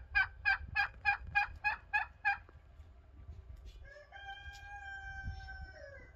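A domestic fowl calls in a quick run of about nine evenly spaced notes, then a rooster crows, its long last note held and falling away at the end.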